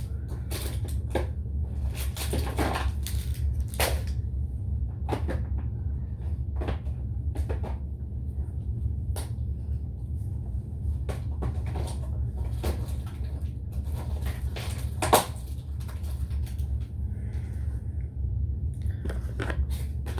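Irregular clicks, taps and knocks of hands mixing slime and handling its containers, one sharper knock about fifteen seconds in, over a steady low hum.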